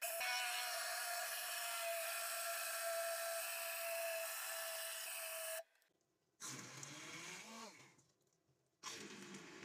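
Electric hand (immersion) blender running with a steady high whine as it purées cooked lentils in a pot; it stops abruptly about five and a half seconds in. Two shorter, lower and rougher bursts follow as it churns thick cooked broken wheat (dalia) in a steel bowl.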